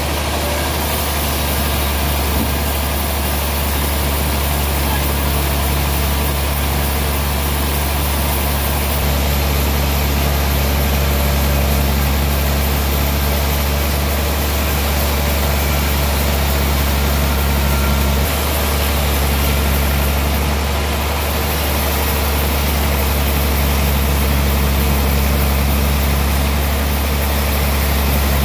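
Large sawmill band saw machinery running steadily with a deep hum, its tone shifting slightly about a third and two-thirds of the way through.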